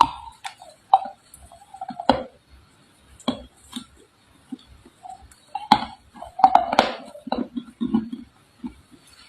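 Red clay crunching: a series of sharp cracks and crunches at irregular intervals, with a denser cluster about six to seven seconds in and softer low thuds between them.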